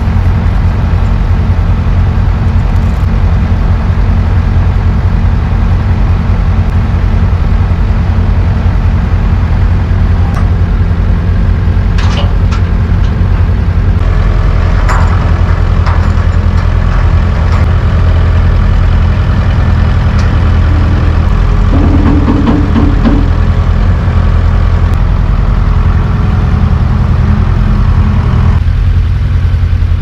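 A large engine running steadily at idle, with a few light knocks and clanks about halfway through.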